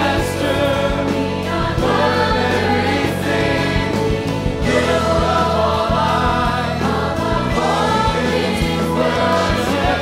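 Gospel choir singing together over a live band: piano, electric guitar and percussion, with steady regular beats.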